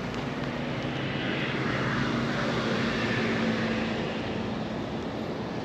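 A distant engine drone passing, with a steady low hum that swells to its loudest around the middle and eases off again.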